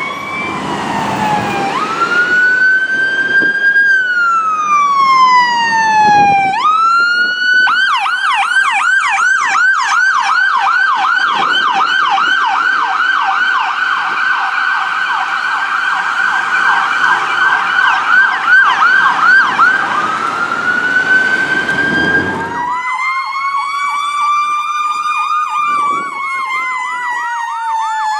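Electronic emergency-vehicle siren, mostly from a paramedic ambulance: a slow wail rises and falls, then switches to a fast yelp for about twelve seconds, then back to a wail. Near the end a slow falling wail and a fast yelp sound at once.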